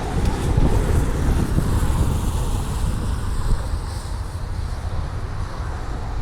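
Gusty wind buffeting the microphone: a fluctuating low rumble with a hiss above it.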